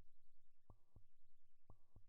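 Faint heartbeat sound effect, a double thump (lub-dub) about once a second, beating twice.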